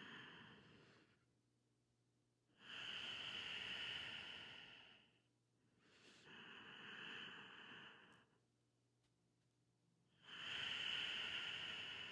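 Slow, even breathing during a held yoga pose: long airy breaths of two to three seconds each, louder and softer in turn, with a short pause between them.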